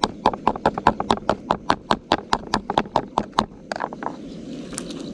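Rapid, even chopping knocks of a knife on a wooden cutting board, about four to five strokes a second, stopping about four seconds in.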